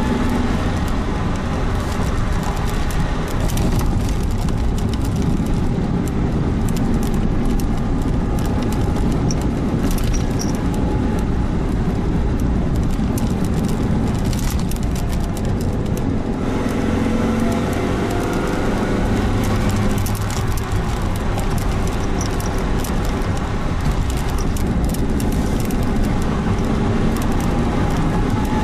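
Suzuki Jimny Sierra on the move: steady engine and road noise, with the engine note drifting up and down a few times.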